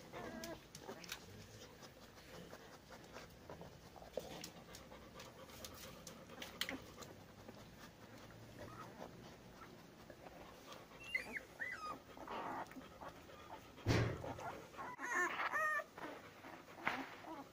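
Labrador mother dog panting while her ten-day-old puppies nurse, with small clicks throughout and high wavering squeaks and whines from the puppies, mostly in the last few seconds. A single thump comes about three-quarters of the way through.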